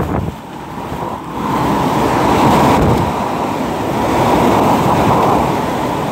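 Hurricane Michael's wind blowing hard as a loud, steady rush with gusts buffeting the microphone, swelling about a second and a half in.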